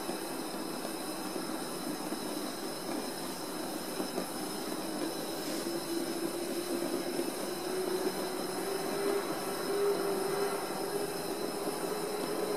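Dainichi kerosene fan heater running, its burner and fan giving a steady rushing noise with a low hum that wavers in pitch. The burner is now burning with a proper blue flame.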